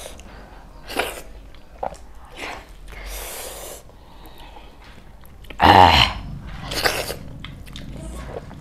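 Close-miked mukbang eating: wet chewing and lip smacks with small clicks as dhido and mutton curry are eaten by hand. About five and a half seconds in, a brief loud vocal sound from one of the eaters stands out above the chewing.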